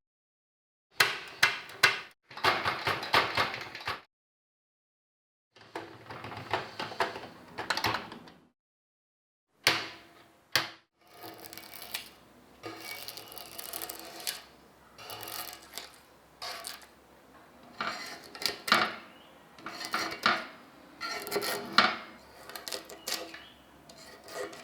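Irregular metallic clicks and clatter from handling the rusty Facit typewriter's mechanism. They come in two short bursts with silent gaps, then as a nearly unbroken run of knocks and clicks from about ten seconds in.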